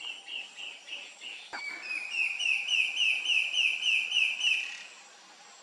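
Antbird song: a fainter run of notes, then a loud series of short, evenly spaced whistled notes, about four a second, that stops about five seconds in.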